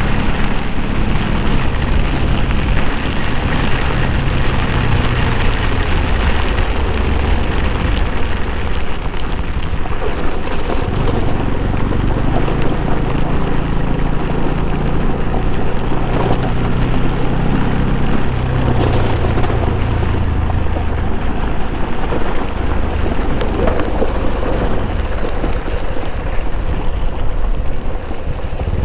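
Motorcycle engine running under way, its pitch shifting with the throttle, under loud rushing wind on the rider's microphone.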